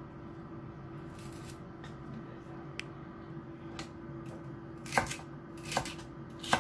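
Kitchen knife slicing celery stalks on a wooden cutting board: three sharp chops in the last two seconds, after quieter handling of the stalks.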